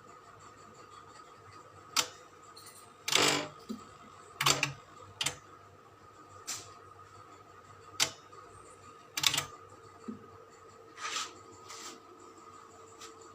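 Scattered clicks, taps and short scrapes, about ten spread irregularly, as of tools and parts being handled during a repair, over a faint steady hum.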